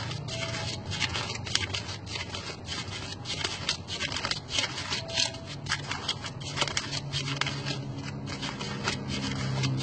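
A stack of rupiah banknotes being counted fast by hand, flicked off one by one with three fingers: a quick, irregular run of crisp paper flicks and rustles.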